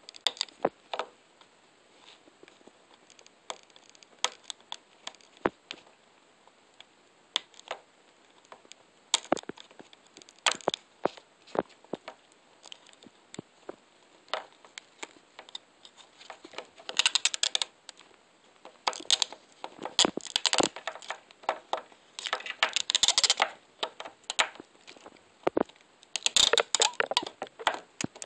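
Fingers working at the hard clear plastic case of an iPod nano box: scattered sharp plastic clicks and creaks, then several longer bursts of crackling plastic in the second half.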